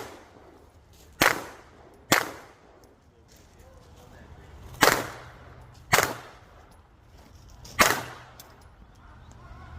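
Five pistol shots fired in a competition course of fire, unevenly spaced: two about a second apart, a pause, then two more a second apart, and a last one about two seconds later. Each has a sharp crack and a short echoing tail.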